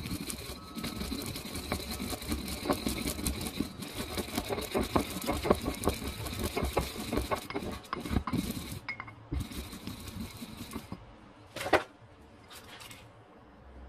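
Wooden pestle grinding sesame seeds in a ceramic mortar bowl: a rapid gritty crunching that stops about eleven seconds in, followed by a single sharp knock.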